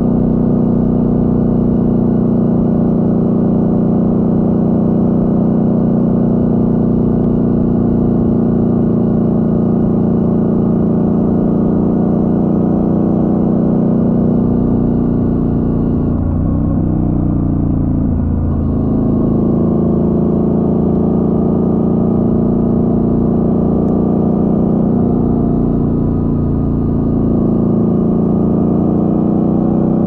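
Motorcycle engine running at a steady cruise. About halfway through the note falls as the throttle eases off, then climbs again as it pulls away, with a second, shorter easing-off near the end.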